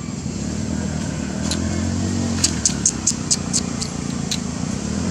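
A motor vehicle engine running steadily, a low drone through the whole stretch. About two and a half seconds in comes a quick run of about eight sharp, high clicks.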